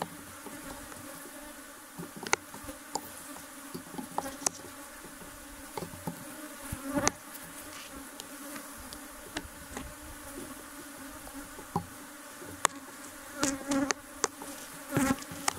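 Honey bees buzzing in a steady hum around an opened, crowded hive, with scattered sharp clicks and knocks, the loudest about two, seven and twelve and a half seconds in.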